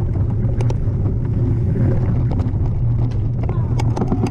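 Mountain bike descending a dirt and rock singletrack: a steady rumble of tyres and wind on the microphone, with sharp rattles and clacks from the bike over the stones, coming more often near the end as the trail turns rocky.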